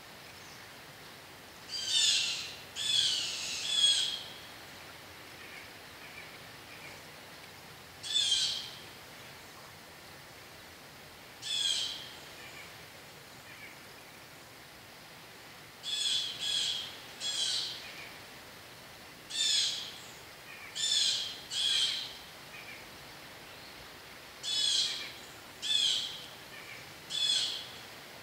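A bird calling repeatedly: about fourteen short calls, coming singly or in runs of two or three with pauses of a few seconds between runs.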